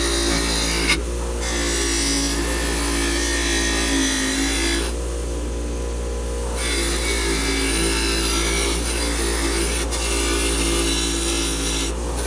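Bench grinder's wire wheel scratching old paint off a steel lamp shade held against it, over the steady hum of the grinder motor. The scraping drops out briefly about a second in, and for about a second and a half in the middle, leaving only the motor running.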